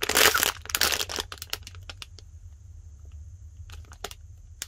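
Clear plastic packaging bag crinkling in the hands, a dense rustle in the first second, then scattered light crackles and clicks.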